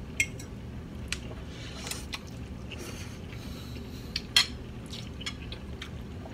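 Metal forks clinking and scraping on plates in scattered strokes, with soft wet sounds of pasta being slurped and chewed; the loudest clink comes about four seconds in.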